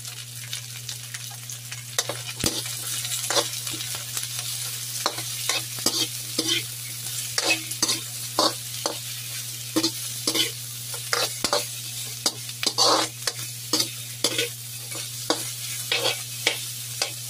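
Carrot strips, onion and garlic sizzling in hot oil in a metal wok, with a metal ladle scraping and clacking against the pan as they are stirred, starting about two seconds in.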